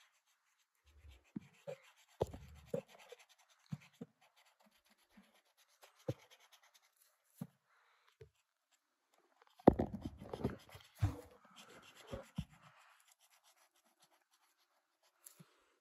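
Felt tip of a POSCA paint marker rubbing and scratching on paper as a shape is filled in with black, with scattered light taps. About ten seconds in comes a louder cluster of knocks and rustling.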